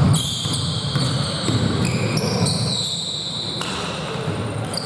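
Basketball game play in an echoing gym: a ball being dribbled and bounced, with high squeaks starting and stopping over it.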